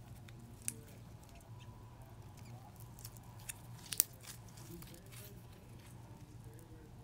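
Fingers poking and squishing a lump of homemade styrofoam slime mixed with clay, giving faint sticky clicks and crackles, the sharpest one about four seconds in.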